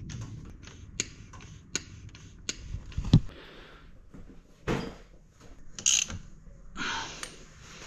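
Hand pump on a gear oil bottle clicking as it is squeezed, then a heavy thump about three seconds in, followed by scuffs and clanks of a wheel and tire and a wrench on a concrete floor.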